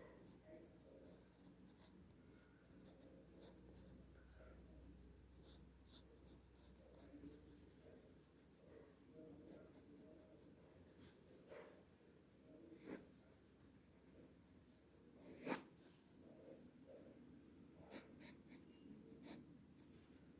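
Faint scratching of sketching strokes on paper: a drawing tool making quick short lines, with a few louder strokes in the second half.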